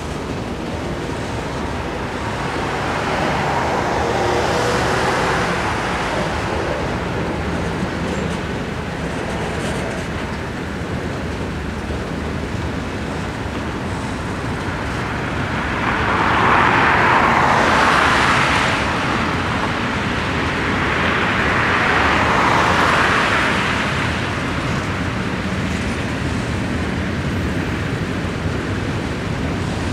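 Long freight train of autorack cars rolling past at close range, a steady rumble and clatter of steel wheels on rail. The noise swells louder a few times, most strongly a little past the middle.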